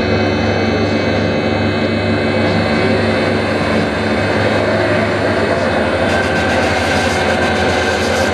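Loud electronic drone from a concert sound system, part of a light and sound show: many sustained synthesized tones layered over a deep bass hum, jet-engine-like. A faint high whistle rises in the first two seconds, and a fast low fluttering pulse sets in about halfway through.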